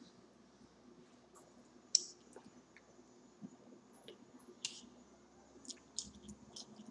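Faint eating sounds of a breakfast burrito being chewed: scattered wet mouth clicks and smacks at irregular moments, the sharpest about two seconds in.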